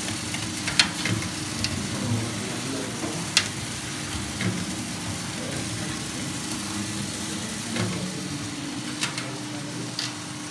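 Small drum coffee roaster running on its 1 HP electric motor with a steady hum, while the roasted beans tumble and are stirred. A dozen or so sharp clicks are scattered through, a little louder about a second in and near three and a half seconds.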